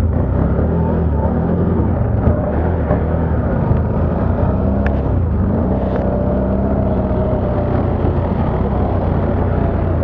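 ATV engine running under way, its pitch rising and falling with the throttle, with a few light knocks from the ride.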